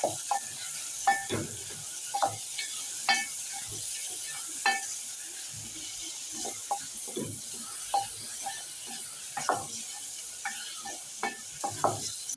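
Onions, garlic and tomatoes sizzling as they fry in a pot, stirred with a spoon: a steady sizzle with irregular scrapes and knocks of the spoon against the pot.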